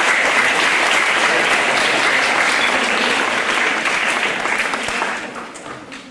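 Audience of students applauding, steady at first, then dying away over the last second or so.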